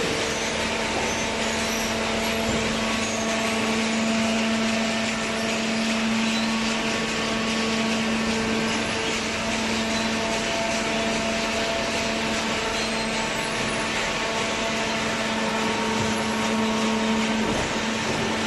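Hydraulic paper baler machinery running steadily: a continuous motor hum with a steady tone that does not change.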